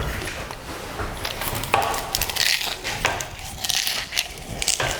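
Irregular knocks, clicks and short scraping sounds of hands-on work with hardware.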